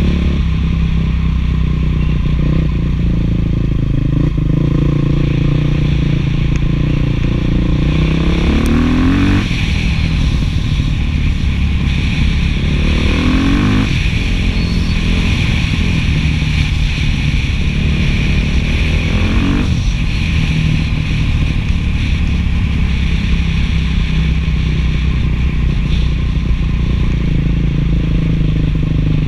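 Beta 500 dual-sport motorcycle's single-cylinder four-stroke engine running through an FMF 4.1 muffler while riding. Its pitch rises sharply three times, about a third of the way in, near the middle and about two-thirds in, as the rider gets on the throttle.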